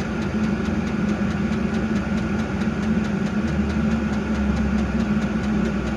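Vevor 5 kW diesel air heater running steadily at high output while it heats up after start-up, a fairly loud constant hum with faint regular ticking; a deeper low hum joins about halfway through.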